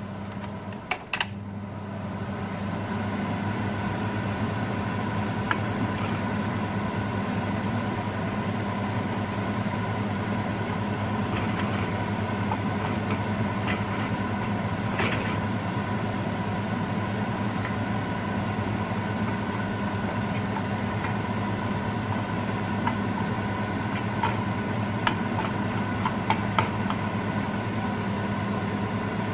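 Steady mechanical hum like a kitchen fan or motor, growing louder about two seconds in. Scattered light clicks of a metal spoon against a stainless steel pan are heard over it.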